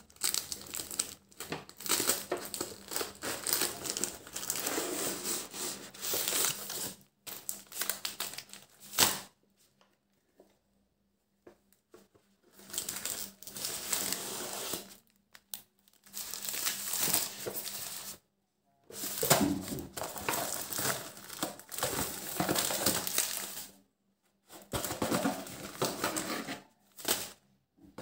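Plastic-wrapped wafer packets crinkling as they are handled and pulled out of a cardboard carton. The crinkling comes in bursts of a few seconds with short silent pauses between them.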